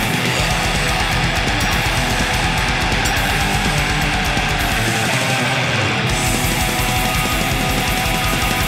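Black metal recording: heavily distorted electric guitars in a dense, fast wall of sound over a rapid pulsing low end, which drops away for about a second around five seconds in.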